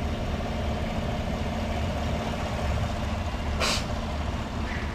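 Chevrolet Tahoe idling with its air conditioning running: a steady low drone, with one short hiss about three and a half seconds in.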